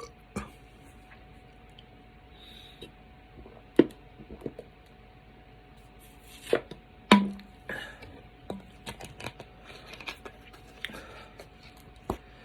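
Scattered short clicks and knocks over a faint steady hum, the sharpest about four seconds in and twice around seven seconds in, with a run of smaller ticks after that.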